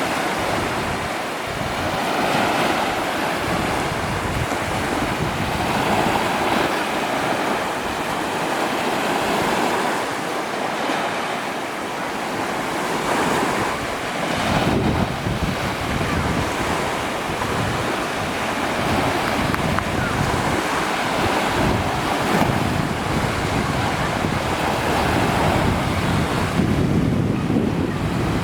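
Wind buffeting the microphone over lake waves washing ashore. It is a steady rushing that swells and eases every few seconds, with heavier low gusts in the second half.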